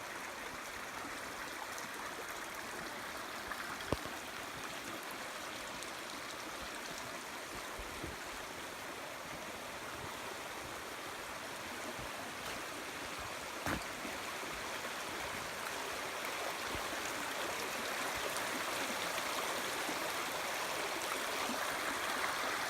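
A small woodland stream running steadily over rocks, with a few faint knocks; the rushing water grows louder toward the end.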